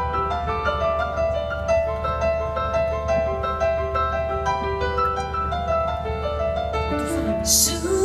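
Piano played live: flowing, overlapping sustained notes. About seven seconds in, a woman's singing voice comes in over it.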